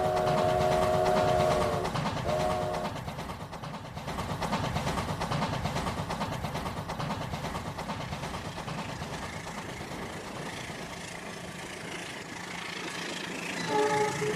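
Rail King battery-powered toy train sounding its electronic horn, a long chord and then a short one. Its small motor and wheels then run with a steady rattle, and the horn gives one brief toot near the end.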